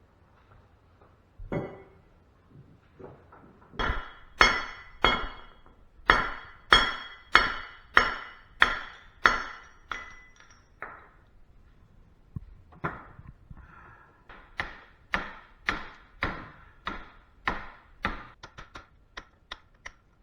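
Sledgehammer blows on a metal barn light fixture covered with a blanket, smashing it apart for scrap aluminum. About thirty hard strikes, roughly one to two a second, many with a brief metallic ring, with a short pause partway through.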